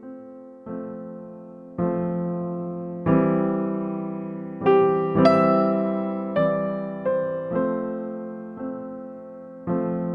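Soft electric piano music: slow chords and single notes, each struck and left to fade.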